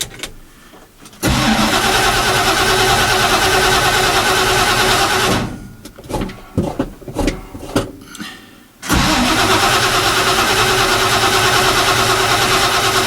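Starter cranking a Ford 351 Cleveland V8 on a cold start: two long cranks of about four seconds each, with a few light knocks in the gap between them. The engine does not catch.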